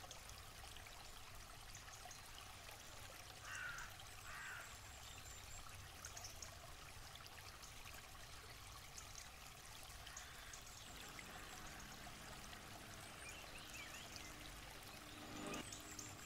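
Faint trickling of a small brook, with occasional bird calls: two short chirps about three and a half seconds in.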